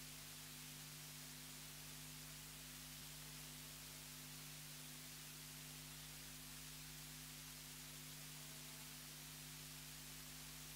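Near silence: a faint steady hiss with a low electrical hum underneath, the recording's background noise.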